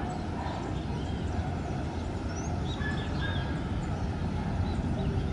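Wind buffeting the microphone as a storm front moves in, a steady low rumble, with a few short bird chirps in the first few seconds.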